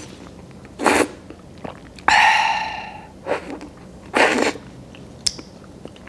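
A woman's sharp breaths and puffs through an open mouth, burning from very spicy kimchi, with one long loud exhale about two seconds in and a short click near the end.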